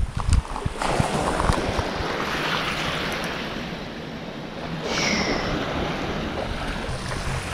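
Steady wind and small waves washing on the shore, a noisy hiss with no clear rhythm. About five seconds in there is one short high-pitched chirp.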